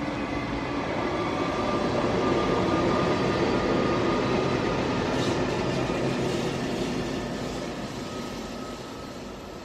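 A train passing by: a steady rumble of wheels on the rails that grows louder over the first three seconds or so, then fades away.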